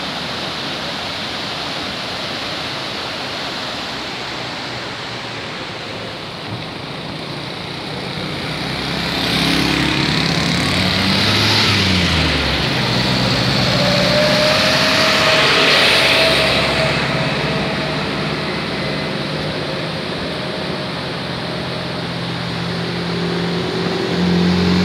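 Steady rush of the Kunhar River's fast, turbulent water, with a motor vehicle's engine passing close by, growing louder about a third of the way in, rising and falling in pitch, then fading again.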